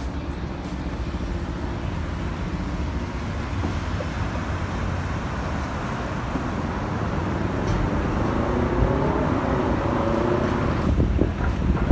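City road traffic: cars running past on a busy street, a steady rumble with an engine's pitch gliding up and down about eight to ten seconds in.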